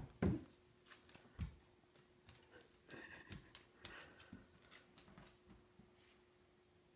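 Scattered light clicks and knocks of a dog's claws and paws on a hardwood floor as it moves about in play. The heaviest is a thump just after the start, with another about a second and a half in.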